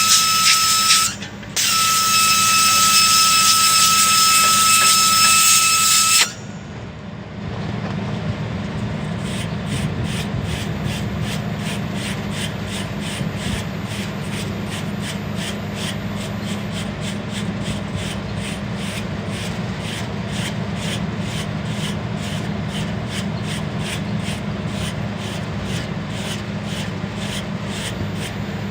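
Nitrogen blowing out a clogged condenser coil: a loud hiss with a steady whistle, cut off briefly about a second in and stopping about six seconds in. Then a brush scrubbing the coil in even strokes, about two a second, over a steady low hum.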